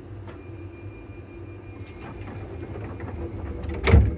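Class 334 electric multiple unit running, heard at the gangway between cars: a steady low rumble with a faint, steady high traction-motor whine, growing gradually louder. Near the end comes a single loud knock.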